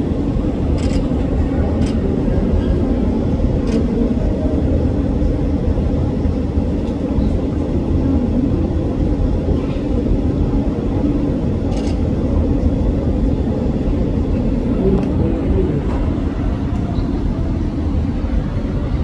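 Steady low rumble of background noise with a faint murmur of voices mixed in, and a few faint short clicks.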